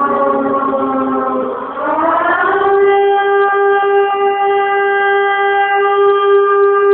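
Air-raid siren wailing: its pitch slides down, rises again about two seconds in, then holds one steady note.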